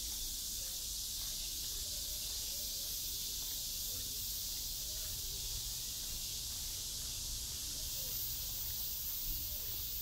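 A steady, high-pitched chorus of summer insects, an unbroken shrill hiss.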